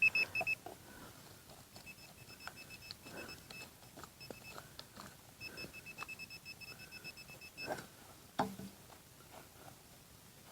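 Handheld metal-detecting pinpointer beeping in fast, even pulses in three spells, which signals metal close to its tip. Between and under the beeps come soft scrapes and knocks of digging in soil, with a sharper knock about eight seconds in.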